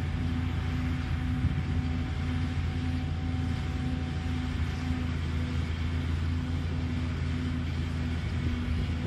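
Diesel engines of a JCB tracked excavator and a dump truck running steadily as the truck reverses into position beside the excavator. A low tone pulses about twice a second over the engine drone.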